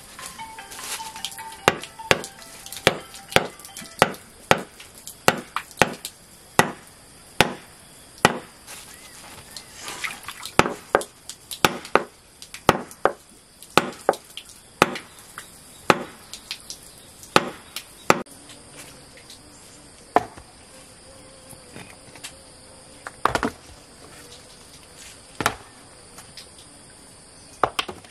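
Hand hammer striking a small object resting on folded cloth in repeated sharp blows, about one or two a second, thinning out to a few spaced blows in the last ten seconds.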